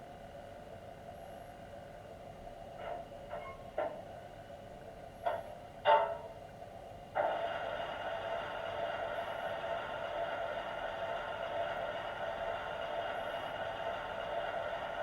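Garden-railway model steam locomotive's Zimo sound decoder playing recorded H. K. Porter steam-engine sounds through the model's small loudspeaker: a few short sharp sounds, then about seven seconds in a steady steam sound starts suddenly and holds.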